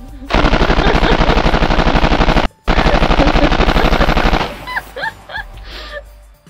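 Automatic gunfire: two long bursts of rapid shots, each about two seconds, with a brief break between. A few short ringing pings follow.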